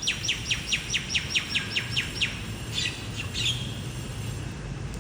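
A songbird singing a fast trill of about a dozen downward-sweeping notes, about five a second, followed by a few shorter notes about three seconds in. A steady low rumble runs underneath.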